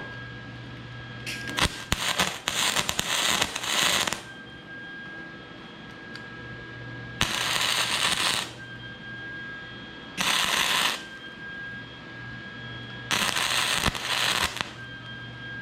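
Welding arc crackling in four bursts, the first about three seconds long and the others a second or so each, as weld is laid on to build up a stop for a clutch lever. A steady low hum carries on between the bursts.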